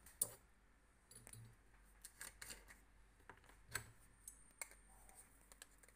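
Faint, scattered clicks and taps of a plastic gunpowder jar being handled and its cap worked open, with a few sharper clicks about a quarter second in, around two seconds in and near four seconds.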